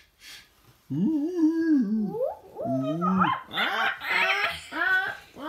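A run of animal-like cries that slide up and down in pitch. They start about a second in, low and drawn out at first, then come higher and quicker toward the end.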